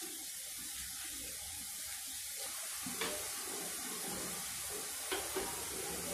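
Boondi, drops of gram-flour batter, sizzling as they deep-fry in hot oil, a steady hiss with a couple of small clicks about three and five seconds in.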